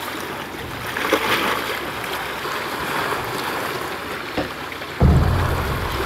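Rowboat under oars at sea: water splashing and lapping along the hull. A short sharp knock comes about four seconds in, and a sudden low rumble lasting about a second comes near the end.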